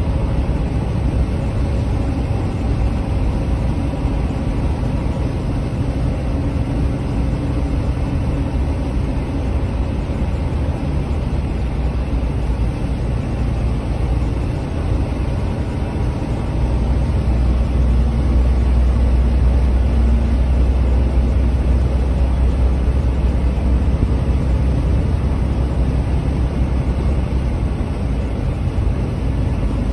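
Steady engine and road rumble heard inside the cabin of a moving vehicle, growing deeper and louder a little past halfway.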